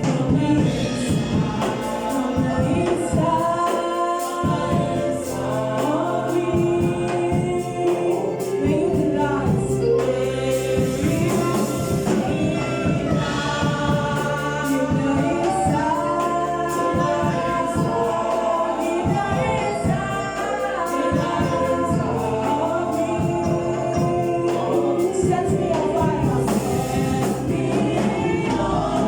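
Gospel choir singing with instrumental backing: many voices carrying a melody over steady bass notes and a regular beat.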